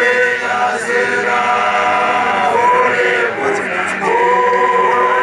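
A large group of young men singing unaccompanied in chorus, holding long notes in phrases that break off briefly between lines.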